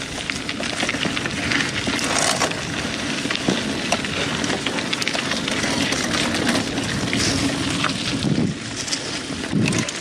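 A mountain bike, a 2000 Klein Attitude Race, is rolling along a dirt trail. The tyres crunch and the bike keeps up a steady clatter of small knocks and rattles.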